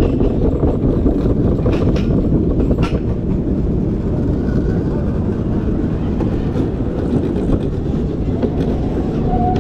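Luge cart rolling fast down a concrete track: a loud, steady rumble of its wheels on the rough surface, with a couple of sharp knocks about two and three seconds in.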